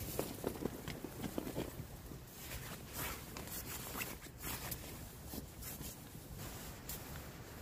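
Synthetic sleeping-bag fabric rustling and crinkling in irregular scrapes and soft knocks as someone shifts on it and handles the camera close to it, busiest in the first couple of seconds and again about halfway through.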